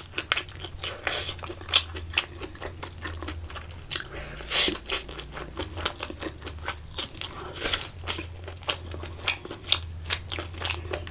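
A person biting and chewing crunchy food, with frequent irregular crunches, louder about four and a half and seven and a half seconds in, over a low steady hum.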